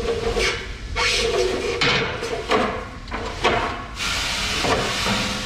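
Steel cleanout slide of a grain cart being pulled back and forth by hand, scraping and knocking. About four seconds in, leftover wheat starts pouring out of the opening with a steady hiss.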